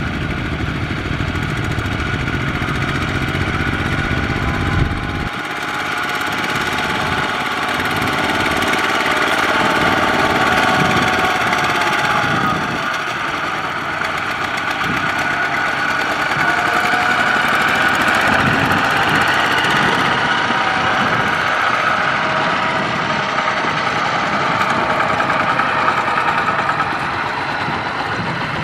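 Single-cylinder diesel engines of two-wheel walking tractors (Kubota ZT155) running steadily as they pull trailers loaded with rice sacks; the engine pitch rises and falls a little now and then.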